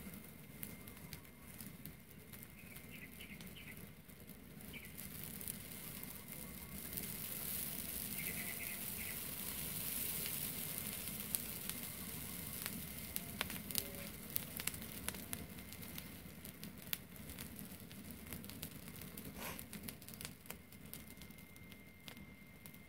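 Open fire of dry grass and straw burning, hissing and crackling with sharp snaps. The hiss swells in the first half as fresh straw catches, and the snaps come thickest just after the middle.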